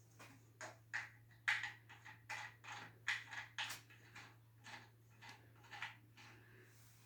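Irregular series of light clicks and taps, about fifteen over a few seconds and loudest in the middle, from the pedestal fan's safety guard being fitted onto the motor housing.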